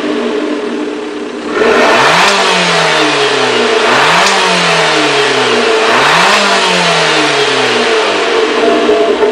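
Abarth 500's turbocharged 1.4-litre four-cylinder on its stock exhaust, idling and then revved three times about two seconds apart, each rev climbing quickly and dropping back slowly to idle.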